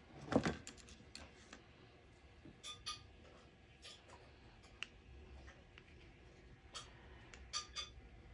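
Painting supplies being handled while paint is mixed: scattered light taps and clicks, such as a brush or tube against a palette, with a louder knock about half a second in.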